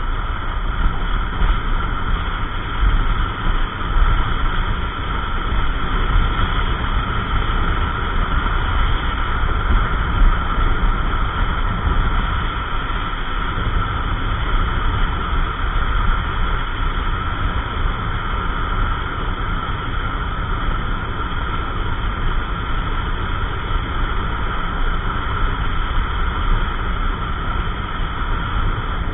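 Yamaha NMAX 155 scooter, a single-cylinder 155 cc machine, riding steadily at cruising speed. A constant rush of engine, road and wind noise with a heavy, unsteady low rumble.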